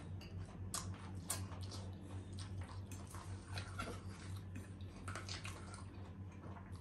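Close-up eating sounds: chewing and mouth noises, with scattered light clicks of a spoon and fork against the rice bowls. A low steady hum runs underneath.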